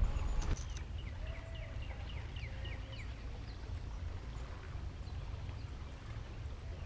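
A bird singing a quick run of about eight short, falling notes, over a steady low rumble.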